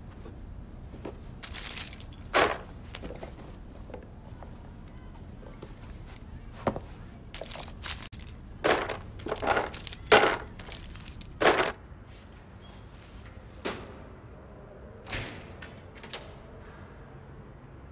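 Wooden clothes pegs being handled and dropped on a carpet: a string of irregular sharp knocks and short scraping rustles, thickest in the first two-thirds, then a few scattered ones.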